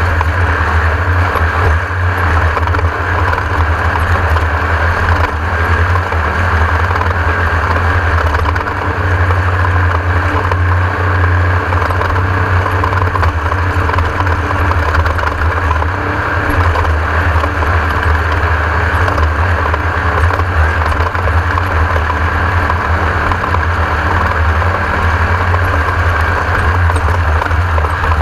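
Class 1600 off-road race car's air-cooled Volkswagen engine running steadily under load, a loud continuous low drone with rattling noise on top.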